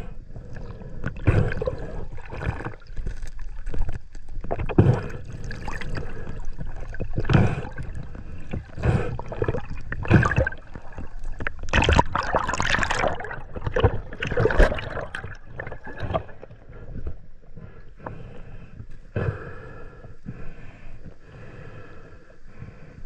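Water sloshing and gurgling in irregular splashes, quieter and steadier for the last several seconds.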